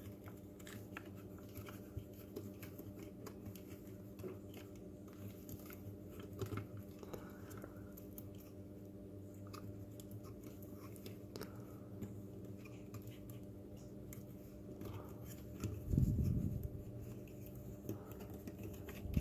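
Faint clicks and rustles of small plastic robot-kit parts and cables being handled, over a steady low hum. About sixteen seconds in there is a louder low thump.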